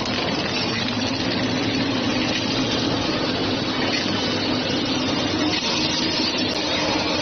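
Food-box film-wrapping machine running steadily, a continuous mechanical hum and hiss without distinct strokes.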